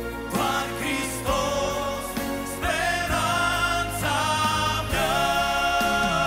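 Live gospel music: men's voices sing a slow song over band accompaniment, holding long notes with a wavering vibrato.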